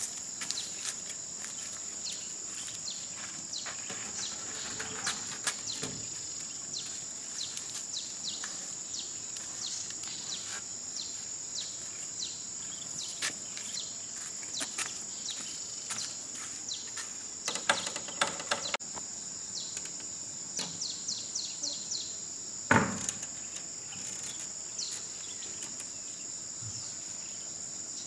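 A steady high insect drone throughout, with the short scratchy strokes of a soft grass broom sweeping over concrete in the first half. A brief louder clatter past the middle and a single sharp thump a few seconds later.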